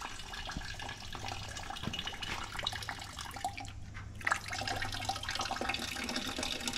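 Red fluid draining from a disconnected line on a truck's front end into a plastic bucket, a steady trickling pour with a faint hum underneath.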